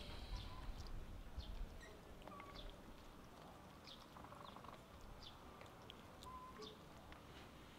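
Small birds chirping faintly: many short, high chirps scattered throughout, with a few brief whistled notes, over a low rumble.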